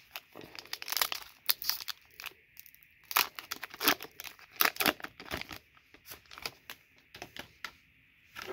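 Foil wrapper of a hockey card pack being torn open and crinkled, a quick run of sharp crackles that thins out over the last few seconds.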